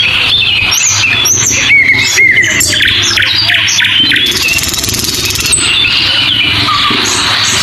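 Many short, high chirping and squealing animal calls over a steady outdoor background in a forest.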